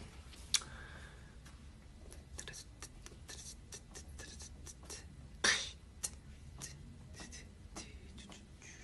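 Scattered small clicks and light scratchy rustles, like handling noise, over quiet room tone, with one short, sharper hiss about halfway through.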